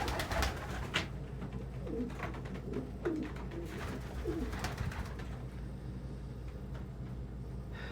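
Domestic pigeons cooing in a loft: short low coos a couple of seconds in, with scattered sharp taps and a steady low hum underneath.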